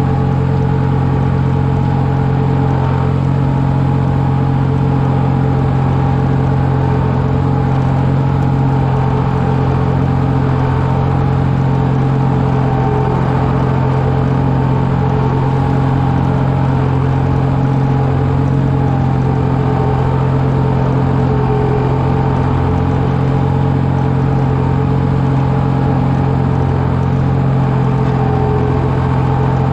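Tractor engine running at a steady speed with a constant low hum, pulling a rear grading blade through soft soil.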